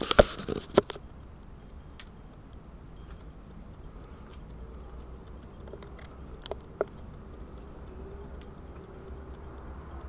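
Handling noise on the camera: a quick cluster of knocks and clicks in the first second, then a low steady hum with a few faint ticks.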